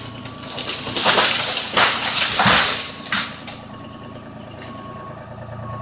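A truck's reversing alarm beeping at a steady pace over a running truck engine. About a second in, a loud rushing, crashing noise lasts for about two and a half seconds.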